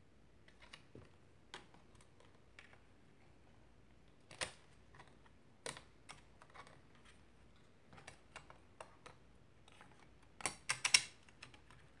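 Thin metal shield inside an iBook G3 being worked back into place: scattered light clicks and taps of sheet metal against the laptop's frame, with a quick run of louder clicks near the end as it seats.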